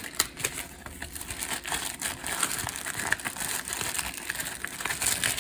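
A folded paper instruction sheet being unfolded and handled, crinkling and rustling in irregular small crackles.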